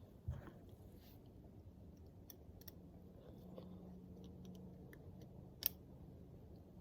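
Faint handling noises from engine parts and tools on the bench: a dull knock just after the start and a sharp click about five and a half seconds in, with a few light ticks over a low steady hum.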